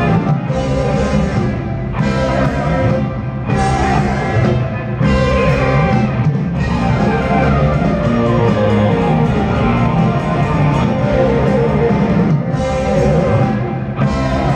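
A live rock band plays loudly on electric guitar, bass, keyboards and drums. The cymbal wash comes in and drops out in stop-start blocks about every second and a half, then holds steady through the middle.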